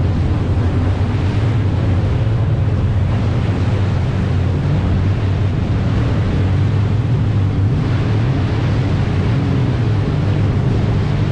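Several jet ski engines running steadily at speed together, a low drone, with water rushing and spraying through the wakes and wind buffeting the microphone.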